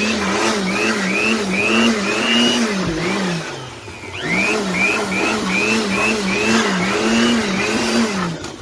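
Handheld electric air blower blowing dust out of an open amplifier chassis, its motor whine wobbling up and down in pitch about twice a second. About three and a half seconds in it eases off briefly and spins back up.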